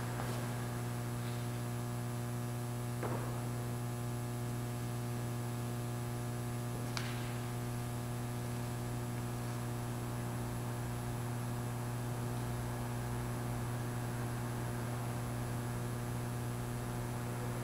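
Steady low electrical mains hum, with two faint clicks about three and seven seconds in.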